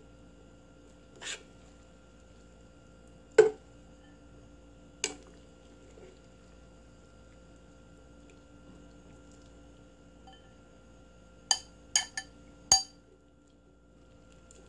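A utensil clinking against a stainless steel pot while boiled soybean sprouts are scooped out: a few scattered sharp clinks, then four in quick succession near the end, over a faint steady hum.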